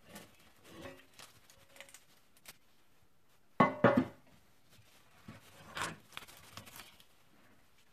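A metal loaf pan knocked against a wooden cutting board to turn out a baked loaf: two sharp knocks close together, with a brief ringing, about three and a half seconds in. Softer knocks of the loaf and pan being handled come before and after.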